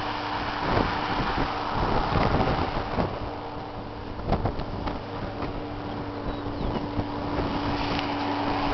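New Holland TM180 tractor's diesel engine running steadily as it pulls a land leveler across tilled soil, with wind buffeting the microphone.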